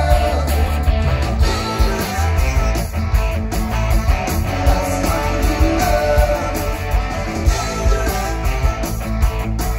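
Live rock band playing, with electric guitars over bass and drums.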